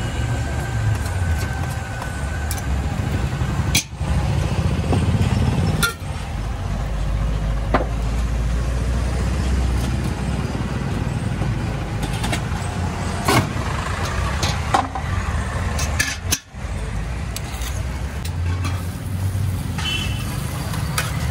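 Steady rumble of road traffic, with occasional sharp metal clinks and scrapes from a flat spatula working on a dosa griddle.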